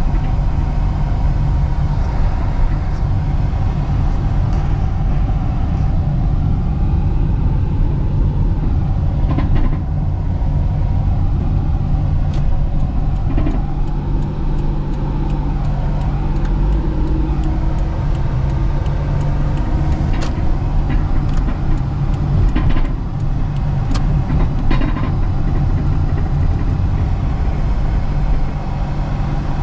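Vehicle engine and road noise while driving: a steady low drone, with scattered clicks and rattles throughout.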